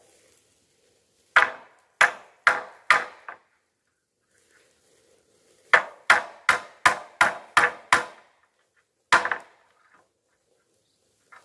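Sharp knocks of a tool striking wood: four in a row, then a quicker run of about seven, then a single one near the end.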